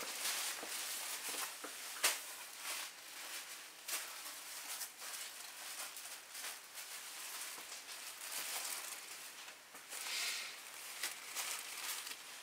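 Faint rustling of a cloth rag and scattered light clicks from handling, with a sharper click about two seconds in and a short hiss-like rustle about ten seconds in.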